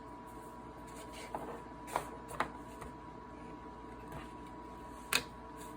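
Earbuds' retail box being opened and its packaging handled: a few scattered sharp clicks and taps, the loudest about five seconds in.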